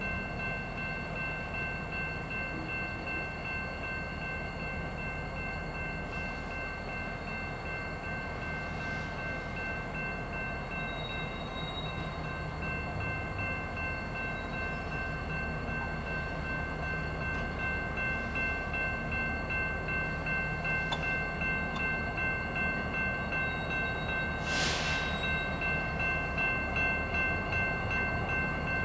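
Diesel freight locomotives approaching slowly: a steady low engine and rail rumble that grows louder near the end, with steady thin high tones over it. A short hiss comes about three-quarters of the way through.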